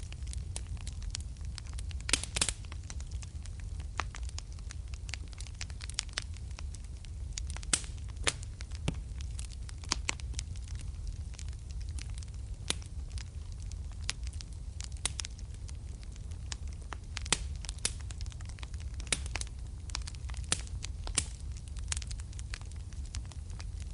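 Wood fire burning in a fireplace: a steady low rumble of flames with many sharp, irregular crackles and pops, a quick cluster of them about two seconds in.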